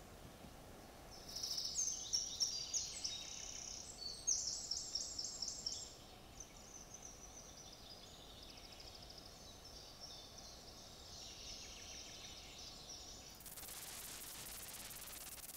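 Woodland songbirds singing: high-pitched phrases and a fast run of repeated notes, loudest in the first half and fainter afterwards. Near the end the birdsong gives way to a steady hiss.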